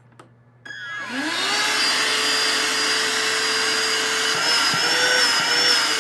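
Etenwolf Vortex S6 battery-powered inflator's high-volume pump starting up in deflate mode, sucking air. Its motor spins up over about a second, rising in pitch, then runs with a steady whirr and a high whine.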